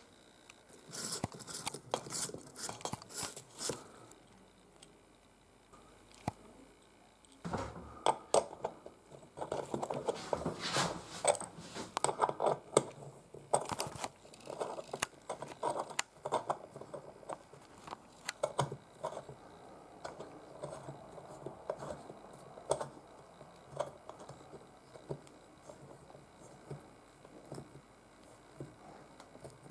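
Hand handling a threaded metal rod and the parts of a ceiling light fixture: scattered clicks, scrapes and rustling. They are busiest in the first few seconds and again from about 7 to 16 seconds in, then come sparse.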